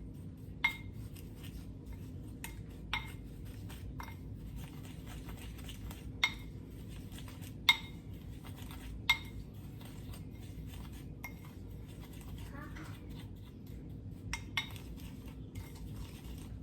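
A utensil clinking now and then against a bowl while dry rub spices are stirred together, sharp clinks a second or more apart over a low steady hum.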